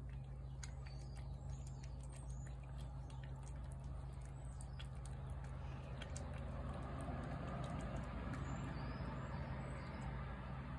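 A cat chewing wet food, with small wet clicks and smacks, over a steady low hum and faint bird chirps. A broad rush of noise swells in about halfway through.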